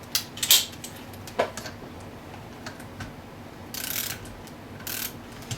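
Light clicks and taps of small metal cylinder-head parts being handled, with two short rustles near the end.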